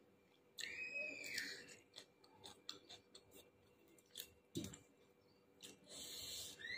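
Faint close-up chewing and eating sounds, with small clicks and a low thump a little over four seconds in. Two high, arching whistle-like calls, each under a second, rising then falling in pitch: one about half a second in, another starting near the end.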